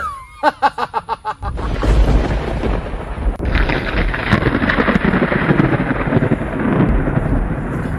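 Thunder rumbling, loud and low, from about a second and a half in, with a steady hiss of heavy rain joining near the middle. It is preceded by a quick run of about seven short pitched notes.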